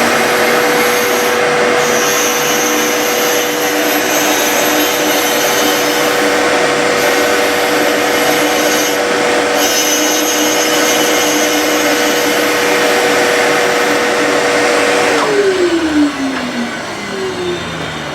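Skate-sharpening machine's grinding wheel running at speed with a steady whine and a rough grinding hiss while the wheel is dressed. About 15 seconds in it is switched off and the whine falls away as the wheel winds down.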